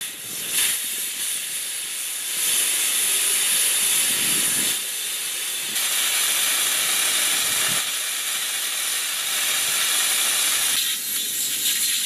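Air hissing steadily out of or into an F-35A landing-gear tire through its valve stem: a loud, continuous high hiss that dips slightly a couple of times.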